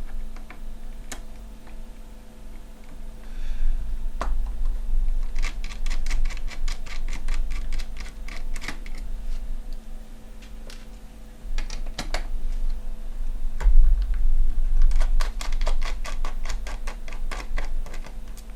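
Small screwdriver backing out the graphics card backplate screws: two runs of fast, even clicking, one about five seconds in and one near the end. Single sharp clicks fall between the runs, over a steady low hum.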